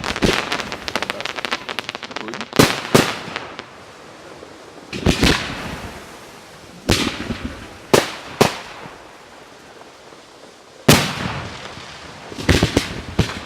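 Fireworks display: a fast crackle in the first second or so, then sharp single bangs of shells going off every second or two, some in quick pairs, each trailing off in echo.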